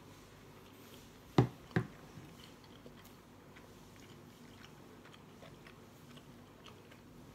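A person chewing a mouthful of cheeseburger, with faint small wet mouth clicks, broken by two loud sharp thumps close together about a second and a half in.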